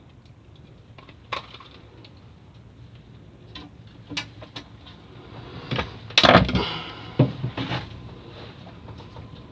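Scattered knocks and clatter on a boat's hard surfaces. The loudest is a cluster of thumps and rattling about six seconds in, followed by a few more sharp knocks.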